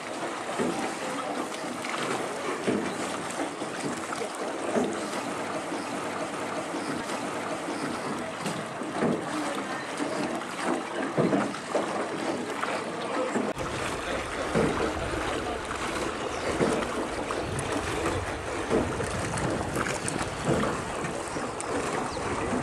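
Water lapping and splashing around a small wooden rowboat as it is rowed along a river. A low rumble of wind on the microphone sets in about halfway through.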